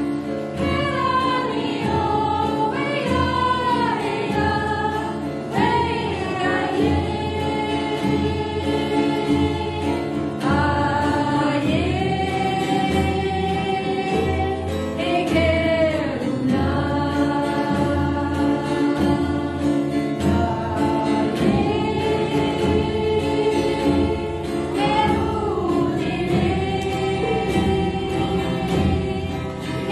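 A group of voices singing a slow, chant-like healing song together, with long held notes, over a steady low drone.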